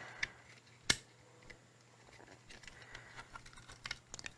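Small plastic parts of a PS4 controller being handled and fitted together. There is one sharp click about a second in, then scattered faint ticks and clicks.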